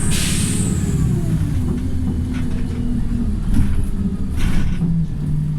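Wright StreetLite single-deck bus slowing, its engine note falling and settling to a steady idle near the end. A short hiss of air comes right at the start, and two briefer hisses follow later: the bus's air-brake 'sneeze'.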